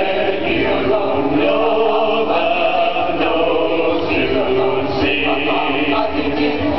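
A large men's chorus singing together, holding long notes.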